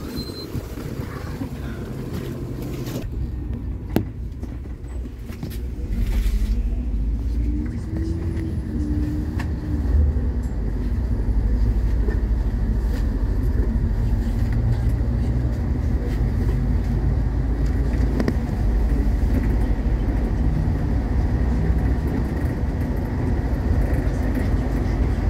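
MAZ-216 articulated city bus heard from inside: a single sharp knock about four seconds in, then the bus pulls away with a rising whine, and settles into a steady low drone of engine and road noise while driving.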